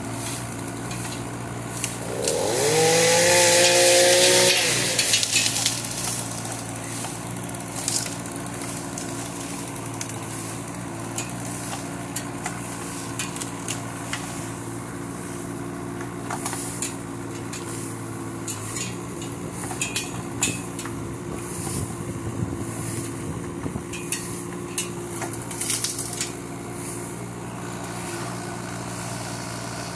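Kubota K008-3 mini excavator's small three-cylinder diesel running steadily while the boom and bucket tear out a bush. About two seconds in the machine strains with a loud whine and hiss for a few seconds, and after that branches and roots snap and crack in scattered sharp clicks.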